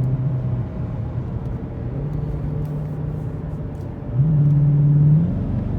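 Car engine running with a steady low drone; its pitch steps up about two seconds in, and it rises and gets louder for about a second starting around four seconds in, like a brief rev.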